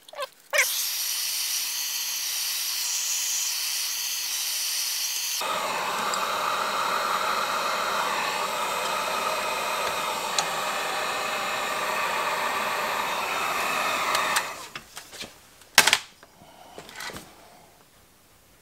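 Electric heat gun blowing steadily for about fourteen seconds, heating the tar potting inside a Bakelite capacitor box so the capacitor can be pushed out, then switched off. A sharp knock and a few small clicks follow near the end as the part is handled.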